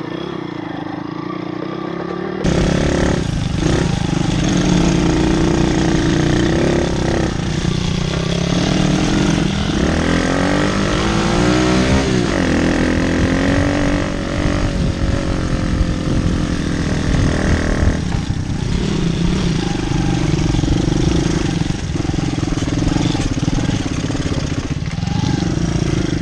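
Small single-cylinder pit bike engine running under way on a dirt track, its pitch rising and falling as it revs, over a heavy low rumble from the ride. It gets suddenly louder about two and a half seconds in.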